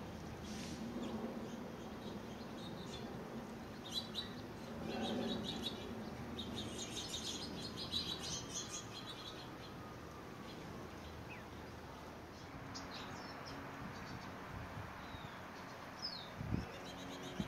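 Finches chirping and twittering in scattered short bursts, busiest a few seconds in, with a low thump near the end.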